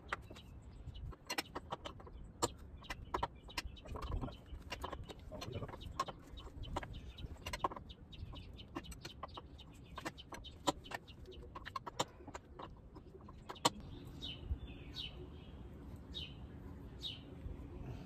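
Irregular sharp metallic clicks and clinks of a hand wrench working on a front control arm bolt of a BMW E36. About two-thirds through, a bird starts repeating a short falling chirp about once a second.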